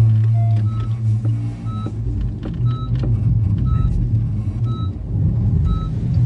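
Electronic warning beeps from the Honda Accord Hybrid's cabin: a short, high beep about once a second over the car's steady low hum. A lower beep in the first half-second gives way to the higher one.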